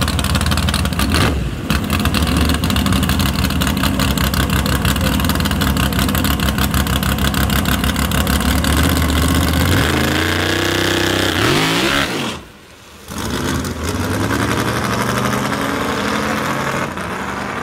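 Drag race car engines running with a rapid, pulsing rhythm, then revving with rising pitch about ten seconds in. After a brief dropout near twelve seconds, the engine sound returns with falling pitch.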